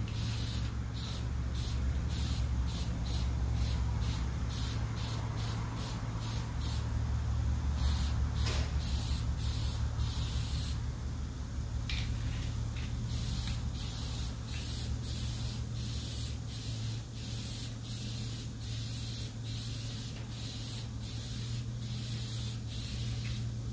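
Aerosol spray-paint can spraying in short repeated bursts of hiss, about two a second, with a couple of brief pauses, over a steady low hum.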